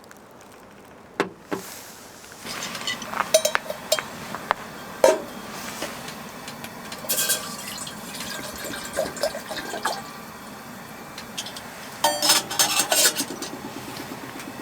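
Liquid being poured into a vessel, with scattered clinks of dishes and cookware.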